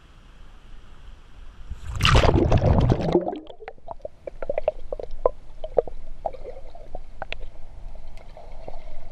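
A loud splash and rush of water about two seconds in as the GoPro goes under the pool's surface, then muffled underwater sound with scattered bubbling clicks and pops.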